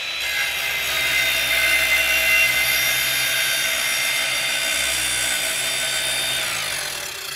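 An electric power tool cutting wood: a steady high-pitched motor whine over a dense rasp. Near the end the whine drops in pitch and fades as the tool spins down.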